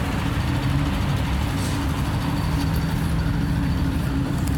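Engines of a column of armoured military vehicles running steadily, a low, even drone.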